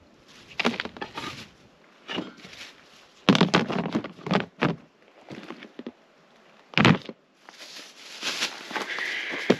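Camping gear being handled and set down: a series of knocks and clatters, with one heavier thump about seven seconds in and some rustling near the end.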